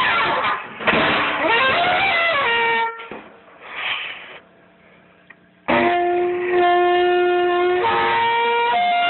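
A wind instrument playing breathy notes that bend and slide in pitch, then breaking off for a couple of seconds. It comes back with long held notes that step between a few pitches.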